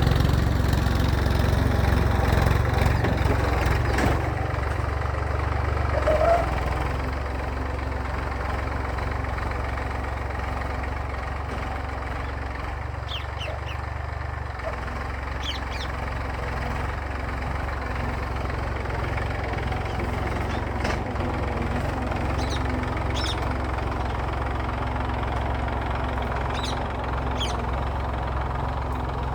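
Massey Ferguson tractor's diesel engine running steadily while pulling a plough, easing slightly in level about six seconds in. Short bird chirps come through now and then in the second half.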